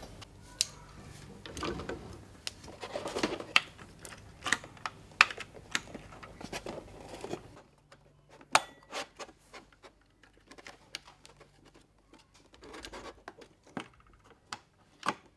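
A CPU cooler being set onto a computer motherboard and pressed down by hand: a scattering of small clicks, taps and rattles of plastic and metal parts, with a sharper click about eight and a half seconds in.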